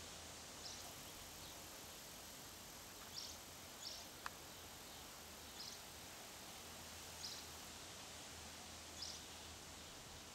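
A small bird's short high chirp, repeated every second or two over a faint steady hiss, with one sharp click about four seconds in.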